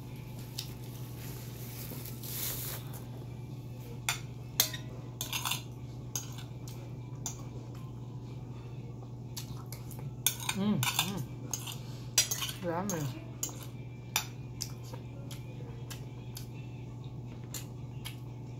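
Metal spoon and fork clinking and scraping against a ceramic dinner plate in scattered, irregular clicks, over a steady low hum.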